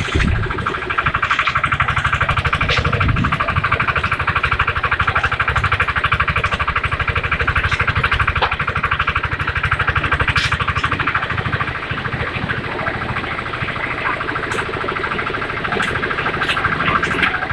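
Engine of a concrete mixer with lift running steadily with a fast, even beat, with a few sharp clinks now and then.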